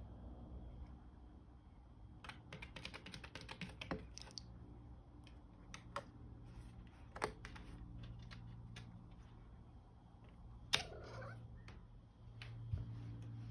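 Light clicking and tapping of a cat's paws and claws against the glass front of a snake terrarium: a rapid flurry of taps, then a few single taps, the sharpest about eleven seconds in.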